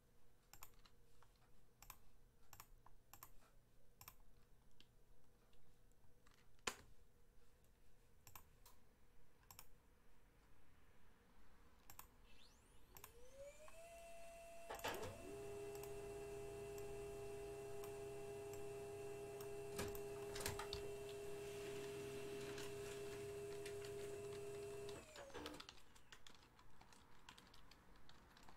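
Computer mouse clicks and keyboard taps, then a label printer running for about twelve seconds as it prints labels. Its motor rises in pitch as it starts and falls as it stops.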